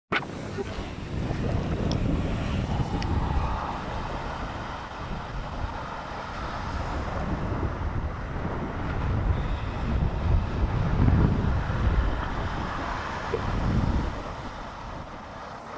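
Strong sea wind buffeting the microphone over the noise of waves, in gusts that swell and ease, strongest about eleven seconds in.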